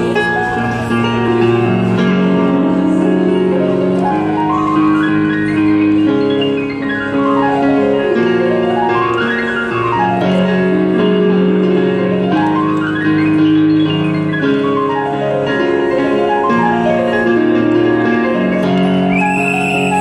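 Digital piano played solo: held chords in the bass with quick runs of notes sweeping up and down the keyboard again and again.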